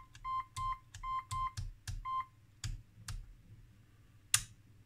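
Siemens Sirecust BS1 patient monitor's pulse beeper giving a run of short, high, buzzy beeps, about three a second, that stop a little over two seconds in. Two faint clicks follow, then a sharp click near the end.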